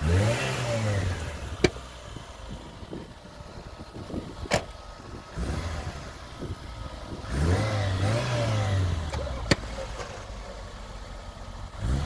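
Tofaş car engine revving up and falling back twice, about seven seconds apart, as the car presses its bumper against another car's. Three sharp clicks come between the revs.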